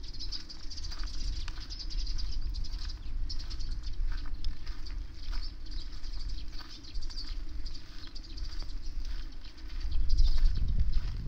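Wind buffeting the microphone in a low rumble that swells about ten seconds in, over rain pattering in irregular ticks.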